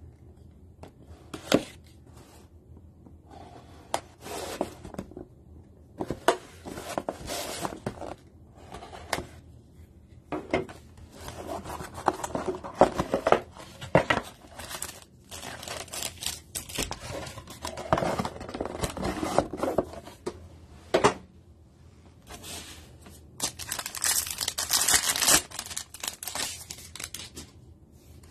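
A utility knife slitting the seal of a cardboard trading-card box, then irregular scraping, rustling and crinkling as the foil card packs are handled. Near the end comes a longer burst of tearing and crinkling as a pack wrapper is ripped open.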